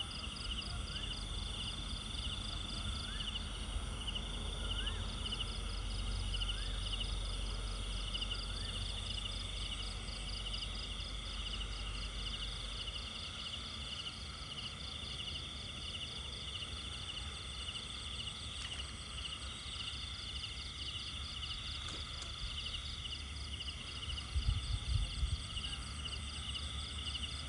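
Outdoor rural ambience: a steady, fast-pulsing insect chorus, with a short rising bird call repeated about every two seconds in the first ten seconds. Underneath is a low rumble, with a few low knocks near the end.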